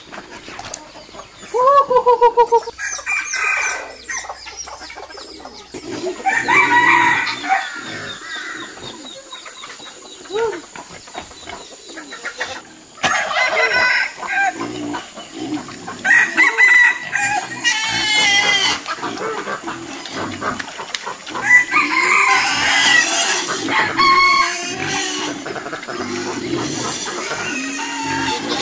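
Chickens clucking, with roosters crowing several times.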